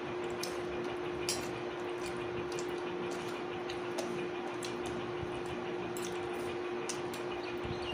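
Eating sounds: scattered soft clicks and wet smacks of chewing and handling food, over a steady low hum.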